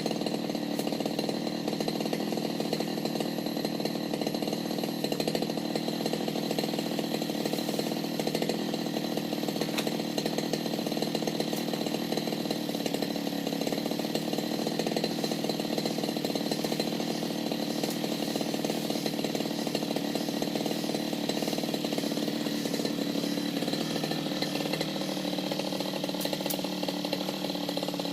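Two-stroke engine of a brush cutter running steadily while cutting patchouli plants, its pitch shifting slightly near the end.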